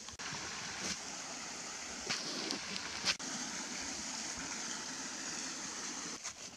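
Flowing water rushing steadily, with a few sharp knocks over it, cutting off suddenly near the end.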